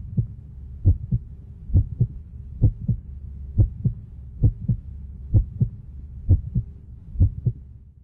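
Heartbeat sound effect: paired low thumps (lub-dub), a little under one pair a second, over a steady low hum.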